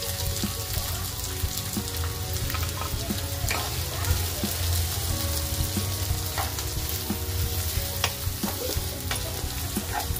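Freshly added chopped onions and green chillies sizzling steadily in hot oil in a kadhai, stirred with a wooden spatula that ticks and scrapes against the pan now and then.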